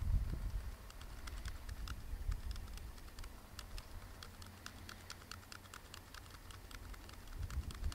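Laptop keys clicking in a quick, uneven run of light taps, several a second, as trail-camera photos are stepped through on screen.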